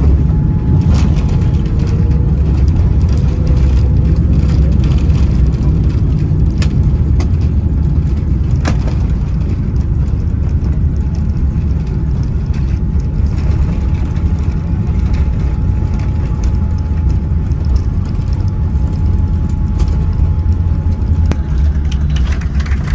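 Boeing 787 cabin noise: a loud, steady low rumble of engines and airflow with a faint steady whine, and a few light clicks.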